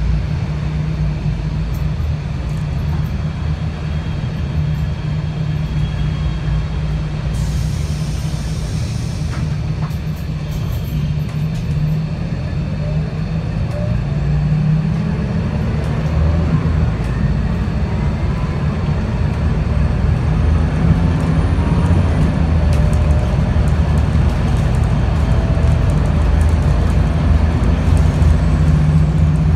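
Interior of a Scania L94UB CNG city bus under way: the gas engine drones steadily while the ZF 5HP502 automatic gearbox whines, with pitch rising a little over halfway through as the bus gathers speed. The uploader labels this gearbox as slipping. A short burst of air hiss comes about seven seconds in.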